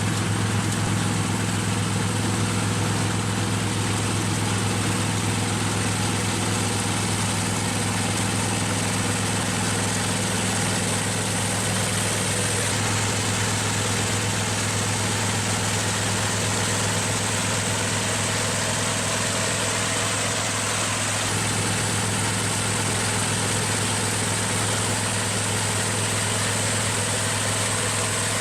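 Engine of a half-feeding rice combine harvester running at a steady speed: a constant low drone with a thin high whine over it.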